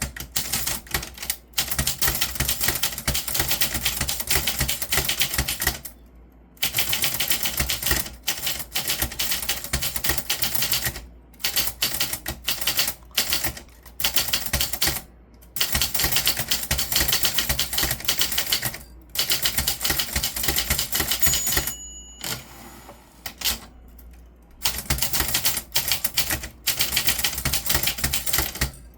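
Typewriter being typed on in fast runs of key strikes, broken by short pauses, with a brief ring about three quarters of the way through.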